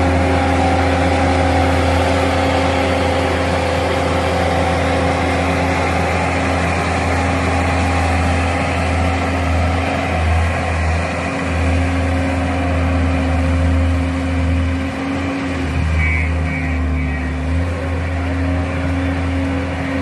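JCB 155 skid steer loader's diesel engine running steadily, its note dipping and changing a few times in the second half.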